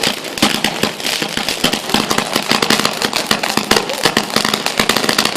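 Fireworks and firecrackers going off all around in a dense, continuous crackle of rapid pops and bangs.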